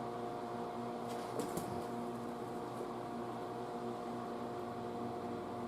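Steady electrical hum of several held tones from the tube amplifier test bench while the amplifier is driven with a low-frequency test signal; a couple of faint clicks about a second and a half in.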